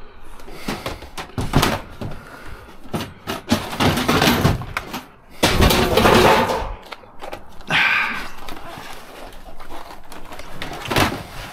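Knocks, thuds and clattering of monitors and scrap being handled and set down, with a longer, louder stretch of noise about halfway through.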